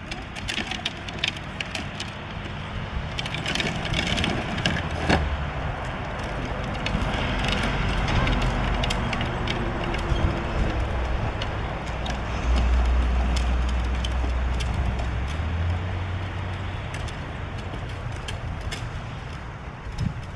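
Hard plastic wheels of a foot-powered ride-on toy car rolling and scraping over a concrete driveway, a steady gritty rumble with many small clicks and knocks.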